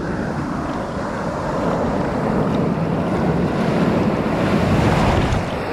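Ocean surf breaking and rushing in the shallows, heard close with the camera at water level; it swells to its loudest about four to five seconds in as a wave crashes through, then eases.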